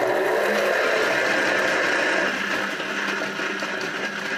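Electric spin dryer for greens running at speed with a load of wet spinach spinning in its basket, a steady motor whir. It dips a little in level about halfway through.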